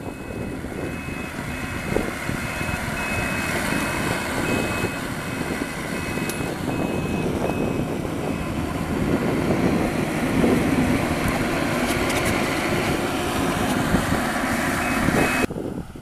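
Yanmar YH850 combine harvester running while grain is discharged from its outlet into sacks: a steady mechanical din from the diesel engine and threshing and unloading works. A repeating high beep sounds through the first half. The machine noise swells somewhat in the second half, then drops off suddenly near the end.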